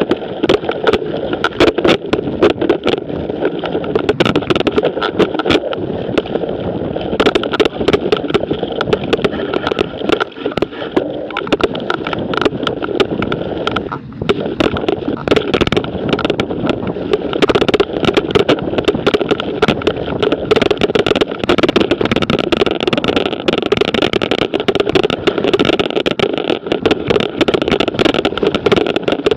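Mountain bike riding downhill over a trail of dry fallen leaves: the knobby tyres crunch through the leaves and the bike rattles over bumps in a continuous noise full of clicks, picked up by a camera mounted on the bike itself.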